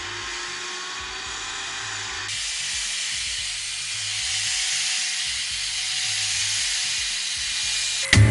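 Ariete 2-in-1 cordless stick vacuum running, a steady hiss of motor and airflow with a faint whine. The sound shifts abruptly about two seconds in.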